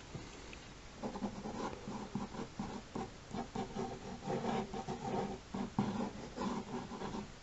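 Drawing strokes scratching across paper, quick and irregular, starting about a second in: rough sketching of a figure.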